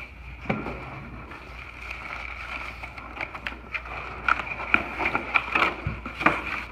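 Cardboard rifle box being handled and opened, then crinkling and crackling of the oil paper wrapped around the rifle as it is lifted out, the crackles thickest in the second half.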